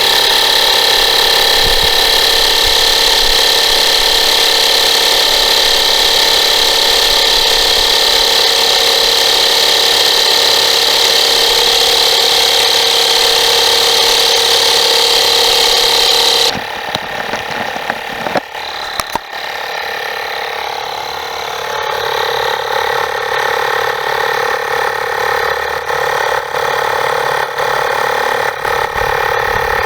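Air being pumped into a freshly plugged tire: a steady, machine-like running sound that drops off suddenly about 16 seconds in and settles into a quieter steady running sound a few seconds later.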